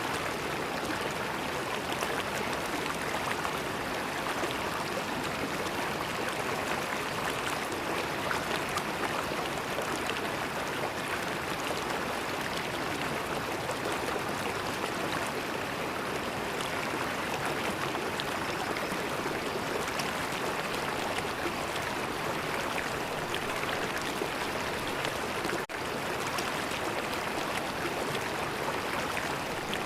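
River water flowing and gurgling in a steady, continuous rush, with a momentary dip in level near the end.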